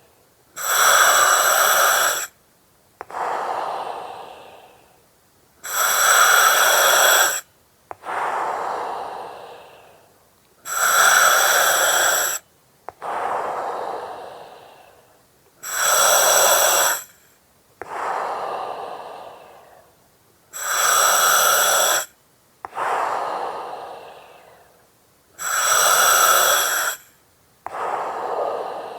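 Slow, regular breathing through an oxygen mask, about one breath every five seconds. Each breath is a loud hiss from the mask's regulator lasting about a second and a half, followed by a softer rush of breath that fades away.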